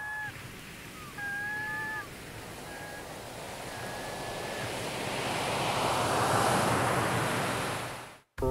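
Ocean-surf sound at the opening of a track: a wash of surf noise that slowly builds and then fades out near the end. A few short, steady whistle-like tones sound in the first few seconds.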